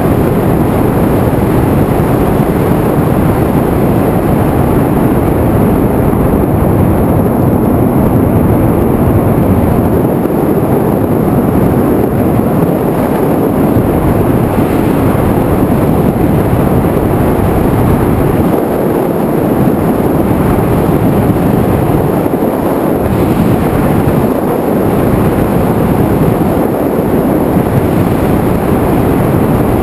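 Loud, steady rushing noise from an FPV aircraft's onboard camera in flight: wind buffeting the microphone, mixed with the aircraft's motor noise.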